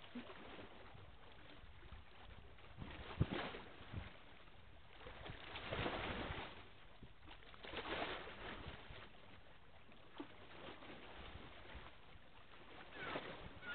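Faint outdoor ambience: a low, steady hiss with soft swells of noise a few times and a sharp click about three seconds in.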